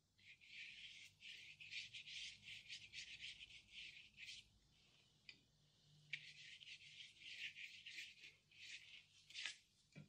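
Faint scrubbing of paintbrush bristles in quick short strokes, about four a second, in two runs with a pause of a second or two about halfway through.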